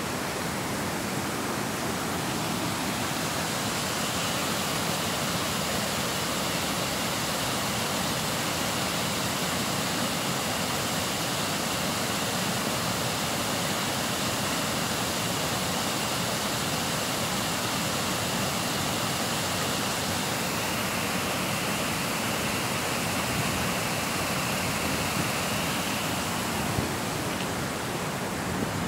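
Steady rush of water pouring through a weir and running down a shallow, rippling stream.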